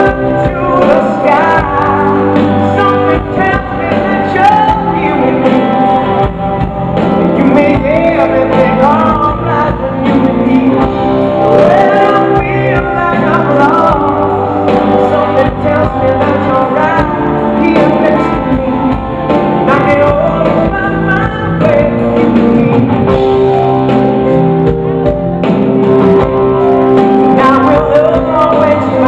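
Live pop-rock band playing: a male lead singer sings over electric guitars and keyboards, heard from the audience in a large hall.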